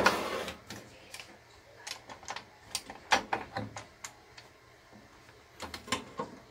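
A sharp snap right at the start as a lock on a Ryobi 18V ONE+ HP circular saw is released, then scattered light clicks and knocks as its plastic and metal parts are handled during a blade change.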